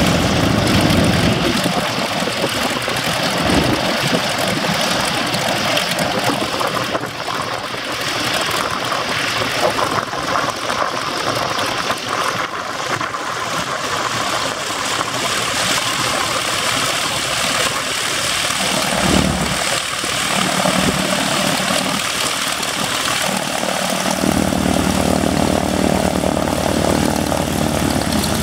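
WACO YMF-5 biplane's seven-cylinder Jacobs radial engine idling with its propeller turning, just after start-up. A steady rushing noise runs throughout, and the deep engine note grows stronger about four seconds before the end.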